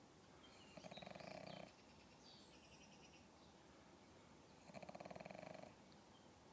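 Pug snoring: two snores about four seconds apart, each about a second long and made of a fast, fluttering rattle.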